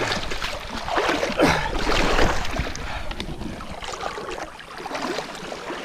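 Water splashing and sloshing as a person wades through a shallow river dragging a canoe, loudest about a second or two in, with wind rumbling on the microphone.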